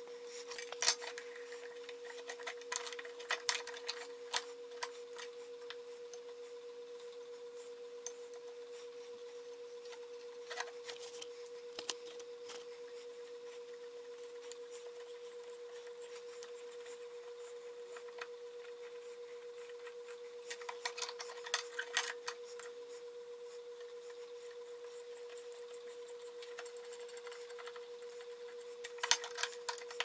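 Scattered bursts of small metallic clicks and clinks as a cast iron pipe fitting and hand tools are handled on a steel welding table and in a drill-press vise, over a steady faint hum.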